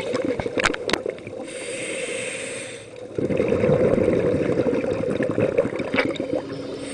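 Scuba regulator breathing underwater: a hissing inhale of about a second and a half, then a long rush of crackling exhaled bubbles.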